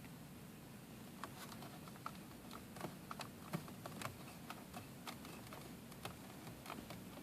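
Light, irregular clicks and taps of hands handling and pressing plastic dash trim pieces, over a faint steady low hum.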